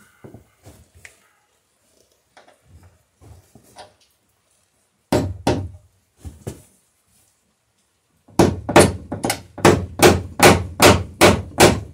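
Hammer driving a ring nail through a wooden plank into pine: a few light taps, two hard blows about five seconds in, then a steady run of quick blows, about three a second, from about eight seconds in.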